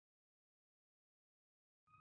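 Dead silence, then just before the end a fire ladder truck's siren and engine begin to fade in: a steady siren tone over a low rumble.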